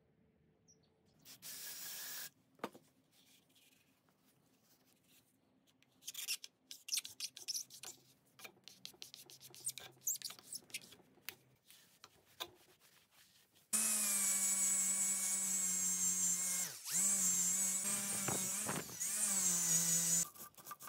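A round rasp file scraping back and forth inside a rusty steel air-gun tube, then a cordless drill whining loudly as it spins a wheel against the air-gun barrel, its pitch dipping twice as the wheel is pressed on.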